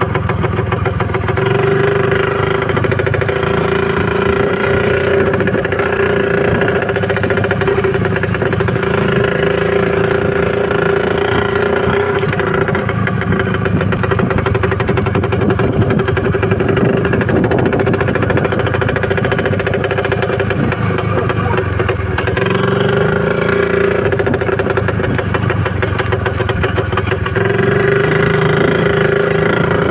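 IZh motorcycle's two-stroke engine running steadily; its note eases off through the middle and picks up again near the end.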